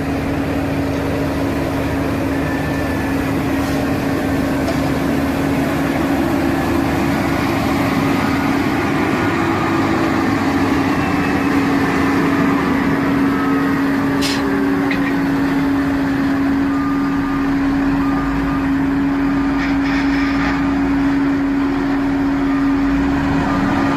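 Heavy road-paving machinery running steadily, with a constant droning hum. A sharp knock comes about halfway through, and faint short beeps repeat about once a second near the end.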